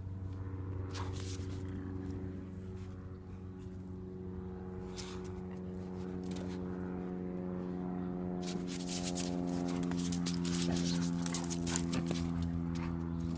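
A red-nose pit bull puppy and a larger white dog play-wrestling, with irregular scuffling and breathy bursts that get busier in the last few seconds. A steady low mechanical hum runs underneath.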